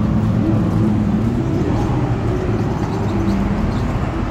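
Busy city street ambience: a steady low rumble of road traffic.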